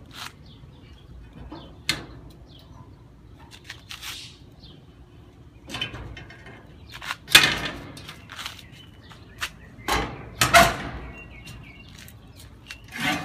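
A series of sharp knocks and clanks from the smoker's parts being opened, slid and swung. The loudest comes about seven seconds in, with two more close together about ten seconds in.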